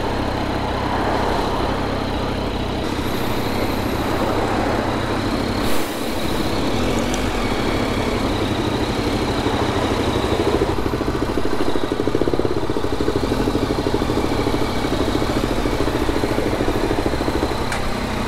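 Motorcycle engine running at low speed with a steady, rapid pulsing, and one short knock just before six seconds in.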